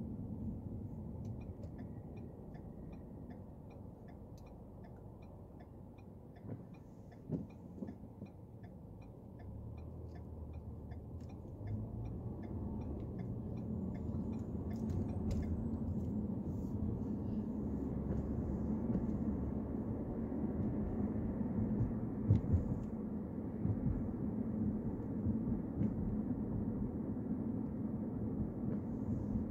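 Car interior noise: low engine and tyre rumble. A turn signal ticks about twice a second for the first dozen seconds and then stops. The rumble grows louder as the car speeds up.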